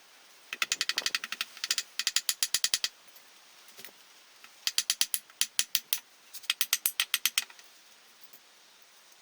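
Hand ratchet wrench clicking in four quick runs of about ten clicks a second, with short pauses between them, as fasteners are turned during an engine teardown.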